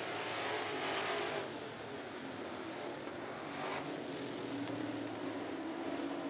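Classic-bodied dirt-track race cars running at speed around the oval, their engines a steady drone. A louder pass-by swells in the first second and a half, and a shorter one comes about three and a half seconds in.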